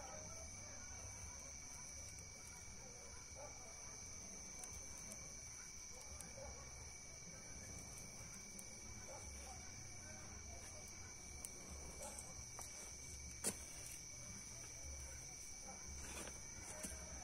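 Steady high-pitched insect trilling, crickets at night, over a faint low rumble, with one sharp click about thirteen seconds in.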